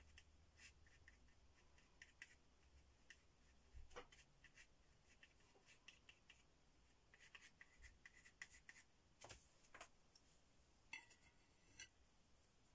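Faint scratching and tapping of a small card's edge pressed and dragged over textured acrylic paint on paper, a scatter of short soft scrapes and ticks.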